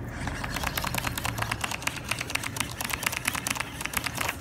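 Shimano Scorpion DC baitcasting reel being cranked to bring the lure back, a fast, even run of mechanical clicks.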